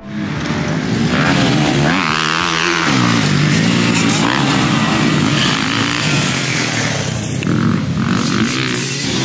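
Dirt bike engine revving hard, its pitch rising and falling again and again as the rider works the throttle over the motocross jumps.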